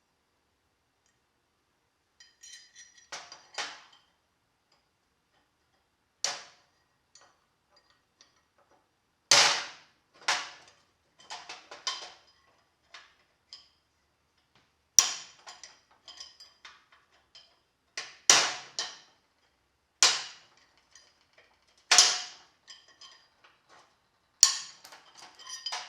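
Hammer blows on a steel car door hinge being taken apart for rebuild: about eight sharp metal-on-metal strikes, irregularly spaced a second or few apart, each ringing briefly, with lighter clinks of small metal parts between them.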